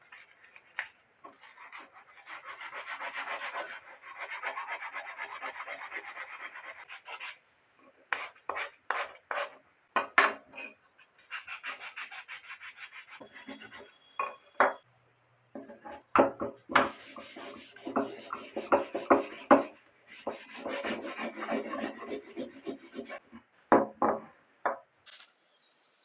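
A wooden piece being worked by hand with an abrasive in stretches of rasping strokes lasting several seconds, broken by sharp clicks and knocks as the wood is handled.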